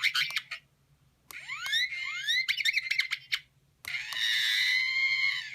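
Sound module in an R2-D2 model figure playing R2-D2 beeps and whistles in three phrases: a short burst of chirps, then rising whistles with rapid chirps, then a longer warbling tone.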